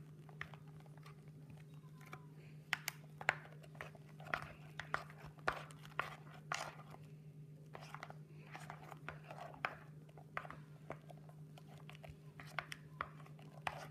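A spoon stirring shaving cream in a glass baking dish: soft squishing of the foam with irregular sharp clicks where the spoon taps the glass, over a steady low hum.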